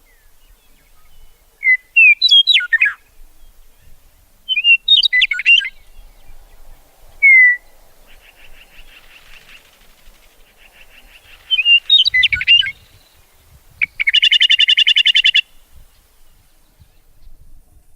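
Songbirds singing: short phrases of sharp chirps and whistles with pauses between them, a fainter buzzy trill in the middle, and a loud rapid trill about fourteen seconds in.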